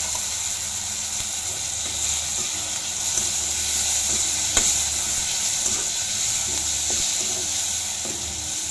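Onion, garlic and spice masala sizzling in hot oil in a kadhai, with chopped tomatoes and green chillies just added, while a metal spatula stirs it. A steady sizzle with an occasional tap of the spatula on the pan, the sharpest about four and a half seconds in.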